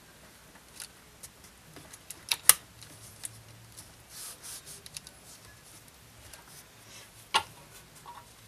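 Scattered small clicks and taps of objects being handled on a workbench, the loudest a quick pair of sharp clicks about two and a half seconds in and another click near the end, with a few soft rustles between.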